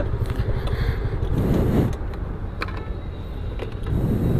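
Street traffic and a scooter being parked: a steady motor rumble, two louder passing surges about a second and a half in and near the end, and a few sharp clicks in between.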